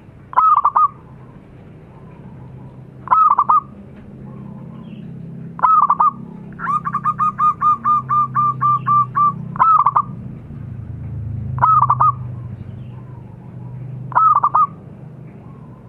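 Zebra dove (perkutut) cooing: six short loud phrases spaced two to three seconds apart, with a run of about a dozen quick staccato notes, roughly four a second, in the middle. A low steady hum runs underneath.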